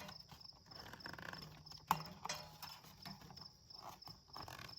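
Scattered light knocks and clunks of parts being handled, with one sharp knock about two seconds in. A cricket chirps in a steady, even rhythm behind.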